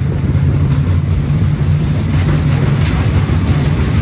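Roller coaster train running along its steel track, a loud, steady low rumble as heard from a rider's seat.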